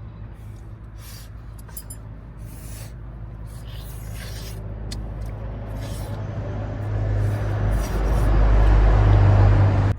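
Highway traffic on the bridge overhead: a heavy vehicle's low rumble building steadily louder over several seconds, with a few light clicks on top.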